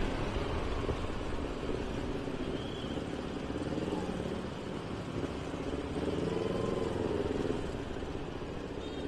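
Kawasaki Ninja 250R parallel-twin engine with an aftermarket racing exhaust running at low revs, its note rising and falling gently.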